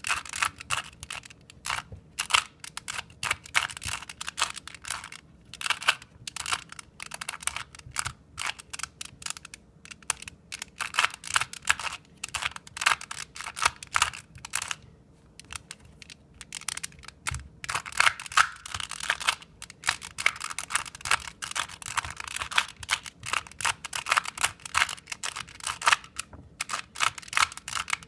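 2x2 Rubik's Cube being turned rapidly by hand: fast runs of plastic clicks and clacks as the layers rotate, broken by a few short pauses.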